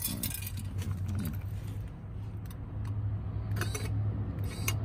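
Electric exhaust cutout valve's motor running, a steady low hum that grows stronger about three seconds in as it drives the butterfly flap open. A few sharp metallic clicks and clinks come from the stainless valve body being handled.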